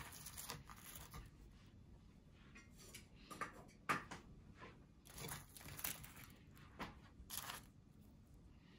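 Quiet kitchen handling sounds of food being arranged on a wooden plate: a few soft scrapes and light taps, the sharpest a single tap about four seconds in.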